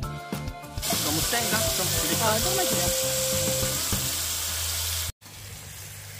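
Pork belly, sliced garlic and king oyster mushrooms sizzling on a round griddle pan, a steady hiss that starts about a second in after a little music. It drops out for a moment at about five seconds and comes back quieter.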